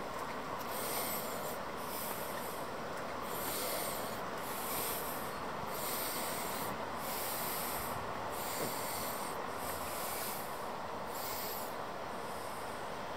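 Steady outdoor background noise with a soft, hissy swish recurring about once a second: footsteps of someone walking across the plank deck of a suspension footbridge.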